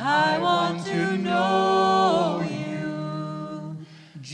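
A small mixed group of men's and women's voices singing a slow worship song a cappella in harmony, on long held notes. There is a short pause in the singing near the end.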